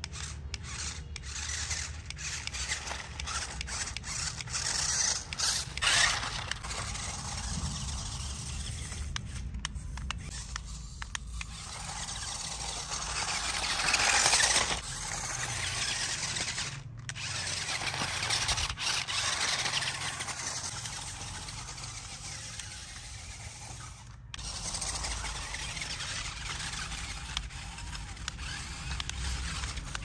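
Small electric drive motor and gears of a remote-control off-road car whirring as it drives over rough dirt and rubble, rising and falling in loudness.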